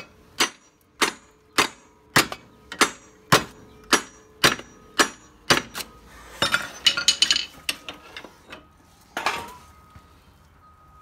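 Hammer blows on a Polaris RZR's seized driveshaft, about two a second for some five seconds, each with a short metallic ring, then a clatter of metal and one last hard blow. The shaft is being knocked to break it free, and it does not budge.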